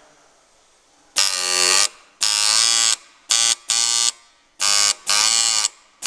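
Pneumatic dot-peen marking machine's stylus hammering dotted characters into a metal door handle: a loud buzz in six short bursts, starting about a second in, its pitch wavering as the stylus moves.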